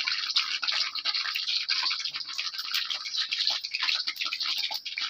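A hand working hot milk into rice flour and wheat flour in a steel bowl: a dense, irregular patter of small wet squishing clicks as the batter is mixed.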